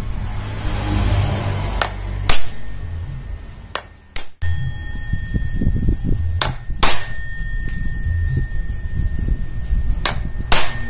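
Hammer striking metal parts several times, mostly in pairs about half a second apart, some hits leaving a thin metallic ring, over background music.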